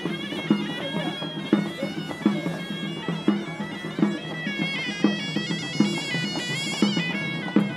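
A shawm-type reed pipe, like the Moroccan rhaita played by Djemaa el Fna's street musicians, plays a nasal wavering melody over a drum beating a little under once a second.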